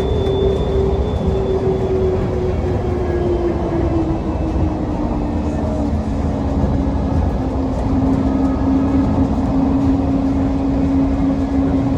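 Interior of an airport people-mover train in motion: steady rumble of the running train with an electric drive whine that glides down in pitch over the first few seconds, then holds a steady tone.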